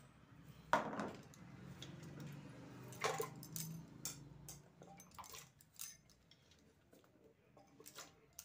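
Chopped vegetable pieces dropped by hand into an empty aluminium pressure cooker, clattering against the metal, with a steel plate knocking. There is a loud clatter just under a second in and another about three seconds in, then lighter taps.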